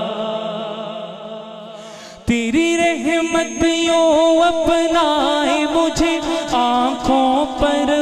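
Male voice singing a devotional hamd in a wordless, ornamented melodic line: a long held note fades away over the first two seconds, then a new phrase starts sharply with a quick beat of percussive hits behind it.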